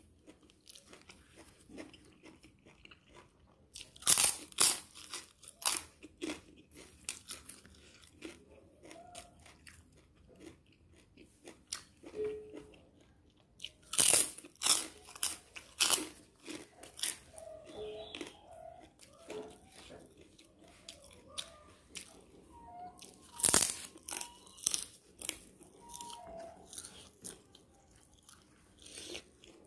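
Close-miked eating: loud crisp crunches of a person biting and chewing crunchy puffed pieces, in three bouts about four, fourteen and twenty-three seconds in, with softer chewing between.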